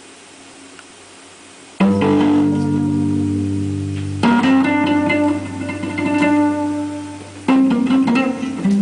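Guitar chords played one after another, each struck and left ringing: the first comes in about two seconds in after near-quiet, with new chords at about four and seven and a half seconds.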